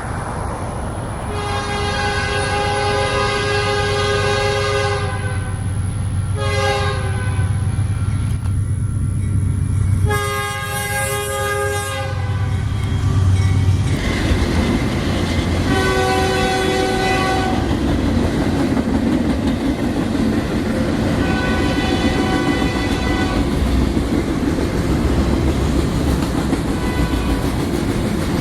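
Fouled locomotive air horn blowing a series of blasts, some long and some short, over the rumble and rail clatter of a passing train. A fouled horn is one whose chimes sound off.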